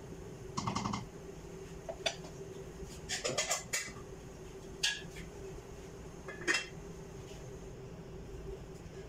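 Aluminium pressure cooker being handled: a wooden spoon knocks and scrapes against its side while stirring milk and rice, then a metal lid is set on it. The sound is a handful of short clinks and clatters, the loudest near the end, over a steady low hum.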